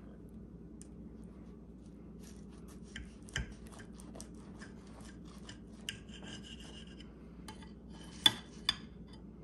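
Table knife sawing through the crisp fried crust of an apple hand pie, a crackly rasping scrape, ending in two sharp clicks as the blade reaches the ceramic plate near the end.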